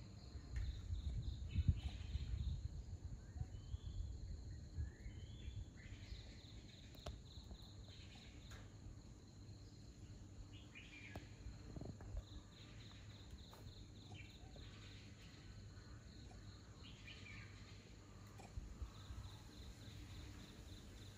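Outdoor ambience: an insect's high, pulsing trill runs on and off, with short bird chirps now and then. A low rumble is loudest in the first few seconds and then fades.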